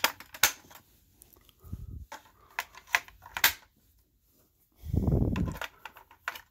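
Sharp plastic clicks and rattles of a small battery compartment being opened and AAA batteries being fitted, with a couple of duller handling thumps, one around two seconds in and a longer one about five seconds in.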